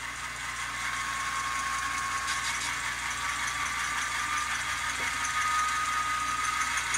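The Econami sound decoder in an N scale Bachmann Dash 8-40CW diesel model plays its prime mover sound through the locomotive's small built-in speaker. The engine's pitch and loudness rise slowly and steadily as it is notched up.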